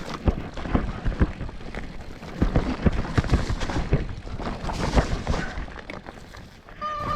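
Mountain bike clattering and rattling as it rides over rough, rocky trail, with many irregular knocks over a steady rushing noise, and a brief high squeal near the end.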